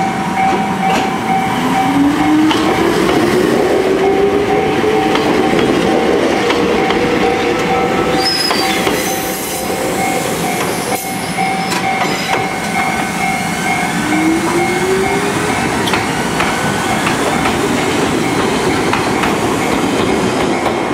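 Ichibata Electric Railway trains (3000, 5000 and 2100 series) pulling out of the station together. Their motors whine rising slowly in pitch as they accelerate, once a couple of seconds in and again about fourteen seconds in, over a steady hum, with scattered clicks of wheels over the rails.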